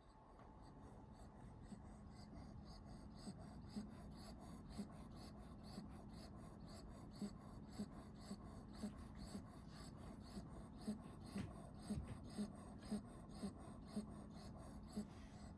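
Shiba Inu puppy snoring in deep sleep: short, faint snorting snores, about one or two a second, in an uneven rhythm.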